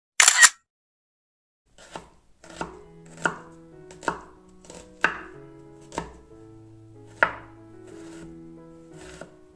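Chef's knife chopping an onion on a wooden cutting board: about ten separate knocks of the blade on the board, spaced slowly and unevenly, starting about two seconds in. It is preceded right at the start by a short, loud burst of noise.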